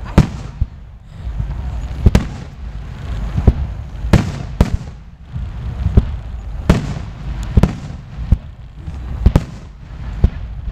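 Aerial firework shells bursting in quick succession: about a dozen sharp bangs at uneven intervals, over a continuous low rumble and crackle.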